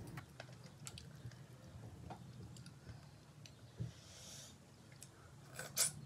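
Fingers mixing food on a metal plate: faint scattered clicks, rubs and squishes. Near the end comes a louder cluster of sounds as a handful of food is eaten.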